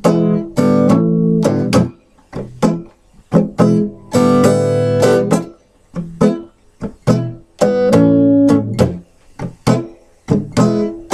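Guitar playing a blues riff: strummed chords, some ringing for a second or more, with short stabs and brief gaps between them.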